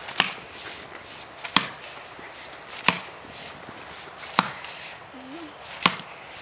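Axe chopping into the trunk of a pine Christmas tree: five sharp blows, about one every second and a half.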